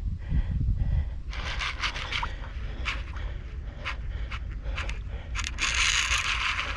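Fishing reel under load from a hooked giant trevally, with a series of sharp clicks and then a longer harsh buzzing burst near the end, over low wind rumble on the microphone.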